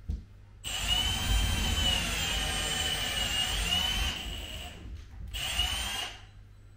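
Cordless drill driving a long bit up into the ceiling boards. It makes one run of about three seconds with a wavering motor whine, then a shorter second run that stops near the end.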